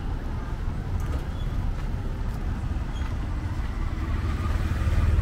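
City street traffic: motor vehicles running past with a steady low engine rumble, growing a little louder near the end.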